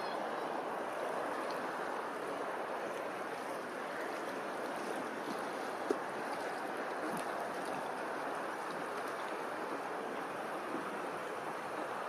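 Steady rush of small waves lapping on open water, with one brief tap about six seconds in.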